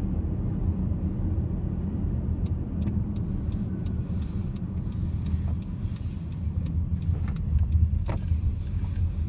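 Car driving, heard from inside the cabin: a steady low rumble of engine and tyres, with a few light clicks and a short knock near the end.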